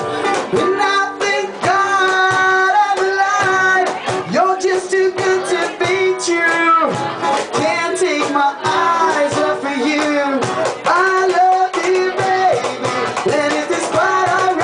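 Live music: a woman singing held, gliding notes over a strummed acoustic guitar.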